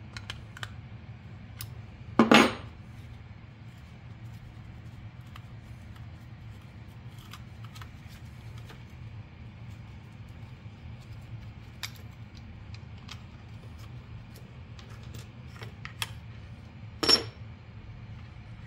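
Small metal clicks and clinks of a wrench and toggle-switch parts being handled, with two louder metallic clatters, one about two seconds in and one near the end, over a low steady hum.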